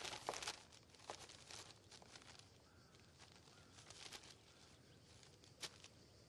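Faint rustling and crinkling of paper as letters and picture postcards are handled, with a few soft clicks and one sharper one near the end, over a near-silent room.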